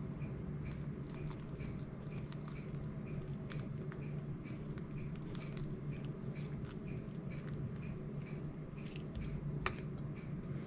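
Knife scraping the seed-filled core out of a halved guava: soft scraping with small scattered clicks over a steady low hum. A faint regular tick repeats about three times a second.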